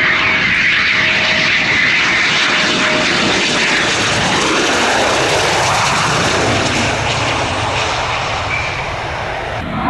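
Eurofighter Typhoon jet with its two EJ200 turbofans, loud, steady jet engine noise with a high whine. The pitch slides lower about halfway through as the jet goes by.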